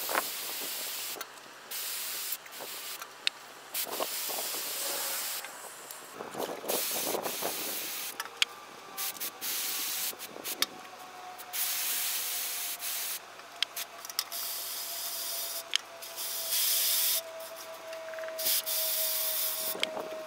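Garden hose spray nozzle hissing as water sprays onto radishes and leaves in a galvanized metal tub, in repeated bursts that start and stop abruptly, with splashes and small knocks in the tub.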